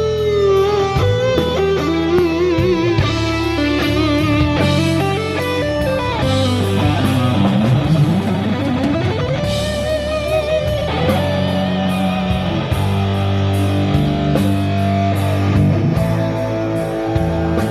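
Rock band playing live: an electric lead guitar with wavering, bent notes over bass and drums, with a long slide down and back up in pitch midway through.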